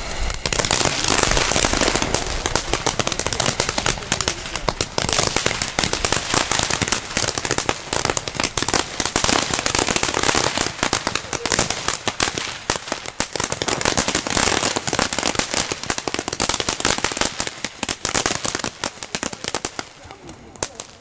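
Firework ground fountain from a Lesli Black Devil XXL assortment burning: a steady spray hiss packed with rapid crackling, dying away near the end.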